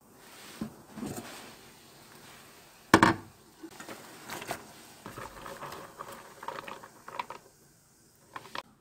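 Water boiling in a lidded pot, then one sharp clank of the pot lid about three seconds in. Soybean sprouts are then tossed into the boiling water, with rustling, small splashes and light clicks against the pot.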